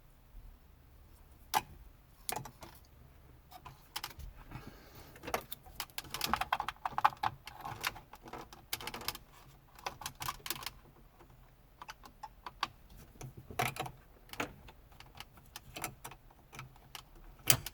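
Plastic wiring-harness connectors being handled and pushed into the back of a truck's dash radio: a series of sharp clicks and light plastic rattles, busiest in the middle.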